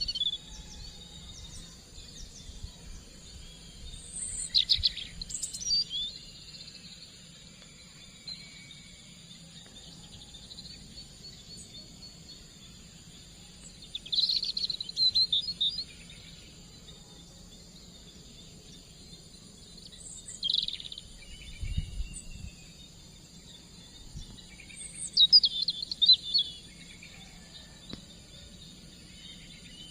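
Birds chirping in short bursts of high calls, four times over, above a steady high buzz of insects.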